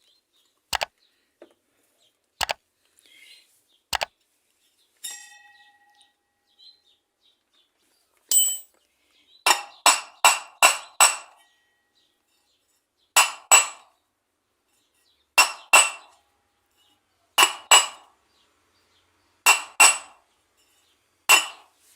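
Sharp metal-on-metal taps that ring briefly, as a washing machine transmission bearing is tapped into its housing. There are three single taps, then a quick run of five, then pairs of taps about every two seconds.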